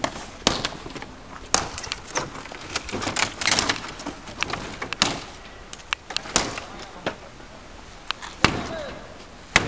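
A wooden lath striking a cardboard-and-wooden-slat construction, giving repeated sharp whacks with cardboard crumpling and slats cracking between them. The blows come irregularly, roughly one every second or so.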